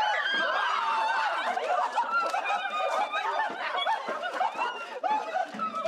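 Several people laughing and squealing over one another, with many short rising and falling voice sounds overlapping.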